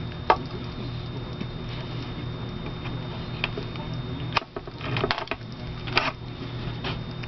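Several short, sharp clicks and knocks of the dryer door glass, gasket and drill being handled, over a steady low hum.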